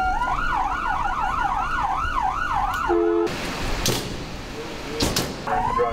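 Ambulance siren in a fast yelp, sweeping up and down about four times a second, until it breaks off about three seconds in. A rushing noise follows with two sharp knocks, and near the end a siren wail starts rising again.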